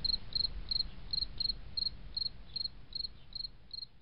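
A cricket chirping in a steady rhythm, about three short chirps a second, over a low rumble, the whole growing fainter toward the end.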